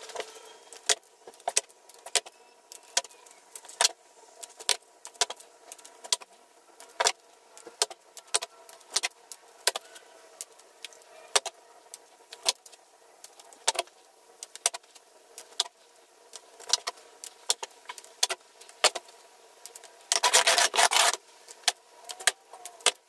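Small metal rollers clinking as they are handled and set down one at a time on plywood: a run of sharp clicks, one or two a second, with a longer jangle of metal on metal about twenty seconds in.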